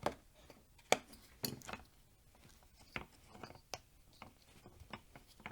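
Sharp little plastic clicks and taps, five or six spread irregularly over a few seconds, as the micro switch is worked loose from a cordless angle grinder's opened plastic housing.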